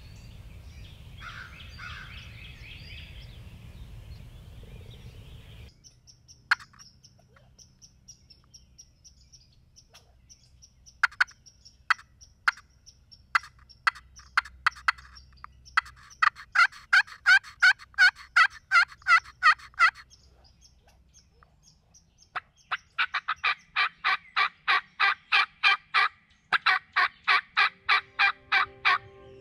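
Wild-turkey calling: a few single sharp notes, then long runs of evenly spaced yelps at about four a second. For the first few seconds there is only outdoor background sound with some small-bird chirps.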